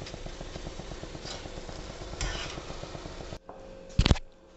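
Boondi frying in hot oil: a steady sizzle full of fine crackles, with a metal skimmer scraping in the pan now and then. About three and a half seconds in the sizzle cuts off sharply, and a brief metal clatter follows against a pot.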